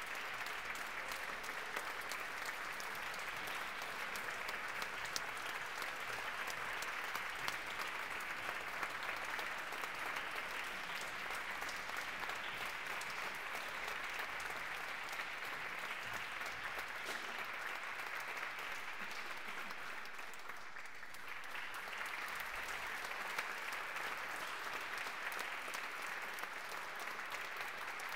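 Concert audience applauding steadily, easing briefly about three-quarters of the way through before picking up again.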